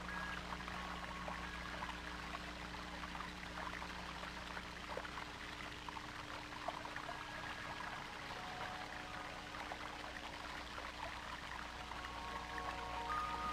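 Faint, steady trickling and splashing of water, over a low steady hum.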